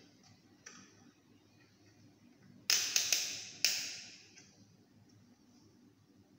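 Handheld digital multimeter and its test probes being handled: a faint click about a second in, then four sharp clicks in quick succession around the middle, each dying away briefly.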